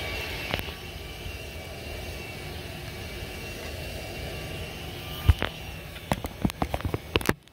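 Electric floor sander running with a steady drone. Several sharp knocks come near the end, the loudest sounds here, and the sound then cuts off suddenly.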